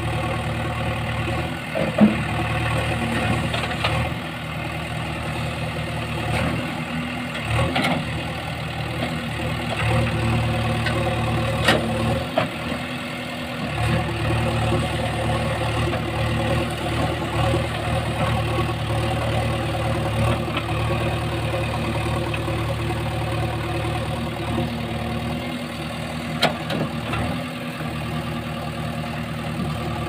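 JCB 3DX backhoe loader's diesel engine running steadily as the rear backhoe arm works, its pitch swelling and sagging slightly with load, with a few short sharp knocks.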